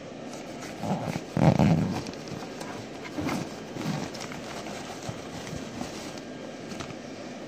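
The inflatable's YEF-80 blower fan runs steadily while its fabric is handled close by. A loud thump comes about a second and a half in, and softer knocks and rustles follow around three to four seconds.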